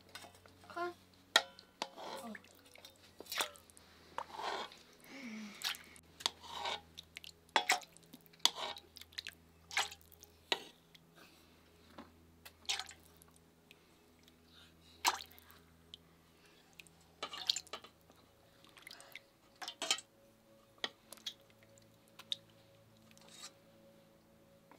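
Metal ladle serving stew: scattered sharp clinks of the ladle against the aluminium pot and steel bowls, with soft wet slops as the stew is poured.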